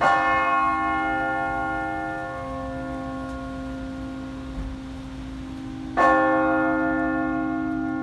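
Seoul Anglican Cathedral's church bell tolling for 4 p.m. Two single strokes about six seconds apart, each leaving a long humming ring that fades slowly.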